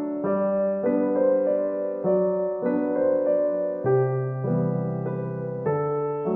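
Background piano music: gentle electric piano chords changing about every half second to a second.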